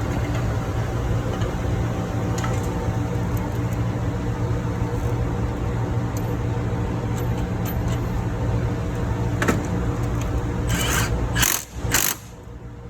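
Loud, steady machinery noise of a ship's engine room: a deep hum with several steady tones. About eleven and a half seconds in come a few sharp knocks and a clatter, then the noise drops abruptly to a much quieter, steady air-conditioning-like hiss.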